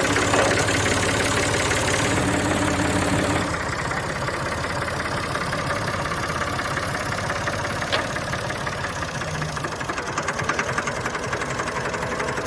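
1987 Massey Ferguson 360 tractor's four-cylinder diesel engine running steadily. The sound drops a little and changes about three and a half seconds in, and there is a single sharp click near the middle.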